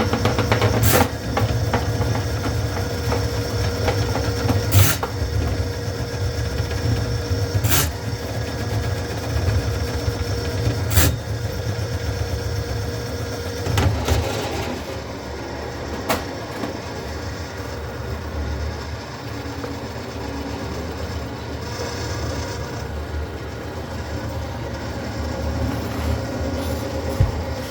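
Motorised drain cleaning machine running steadily, with a sharp knock about every three seconds during the first half.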